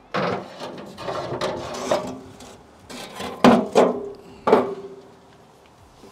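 Metal cooking grates and racks being slid and set back into a steel offset smoker. There are scraping and rubbing sounds and several clanks; the two loudest come about three and a half and four and a half seconds in, each ringing on briefly.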